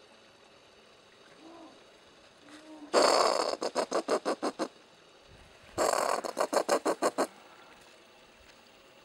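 Brushtail possum calling twice, each call a harsh, loud burst that breaks into a rapid guttural chatter of about seven pulses a second, fading out.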